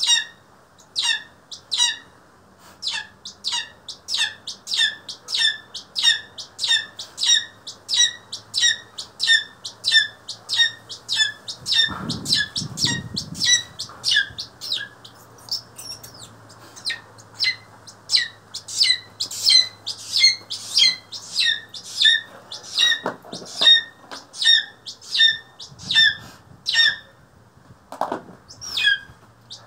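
A young black-chested buzzard-eagle calling over and over, sharp high squawks at about two a second that run on without a break. About twelve seconds in, a short burst of wing flapping as it hops onto the falconry glove.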